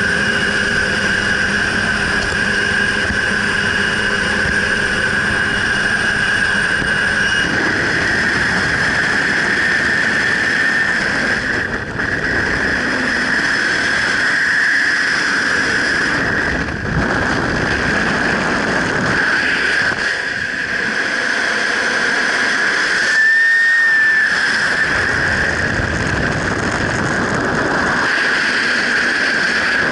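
Jump-plane engine drone with wind rushing past the open door. About seven seconds in the engine tones drop away and freefall wind rushes loudly over the helmet-mounted camera's microphone, with a steady high whistle running through it.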